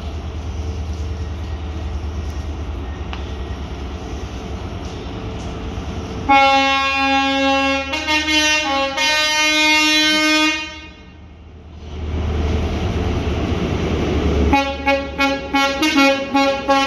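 Low steady rumble of a train, then about six seconds in a train's two-tone horn sounds for about four seconds, stepping between its two notes. Near the end the horn gives a run of short toots.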